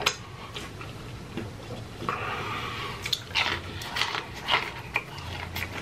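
Close-miked chewing of a mouthful of ranch-dipped fried chicken: irregular wet mouth clicks and chewing noises, loudest around three to four and a half seconds in.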